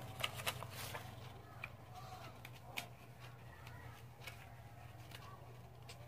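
Faint rustling and light ticks of paper sheets as workbook pages are handled and turned, over a low steady hum.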